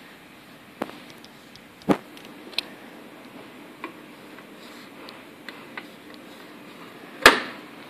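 A few scattered light clicks and knocks from a vending machine's plastic coin mechanism being handled and wiped clean with a rag, its top flap held open, with the sharpest click near the end.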